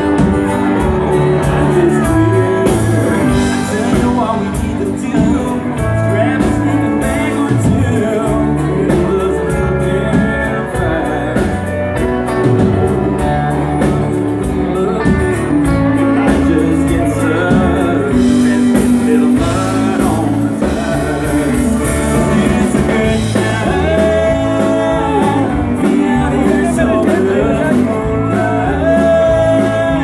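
Live band playing a dance song with a singer and electric guitar over a steady beat.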